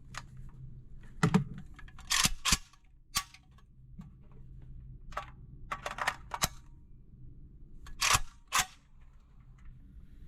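A string of sharp clicks and knocks at irregular intervals, some in close pairs, over a low steady hum.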